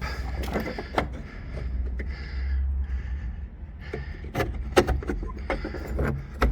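A door being locked and bolted: a string of metal clicks and knocks from the lock and bolt, with the sharpest clanks a little after the middle.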